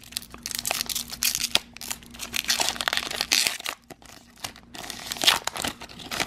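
Foil wrapper of a Pokémon Sword and Shield booster pack crinkling and tearing as it is pulled open by hand, in two spells of crackling with a short pause a little past the middle.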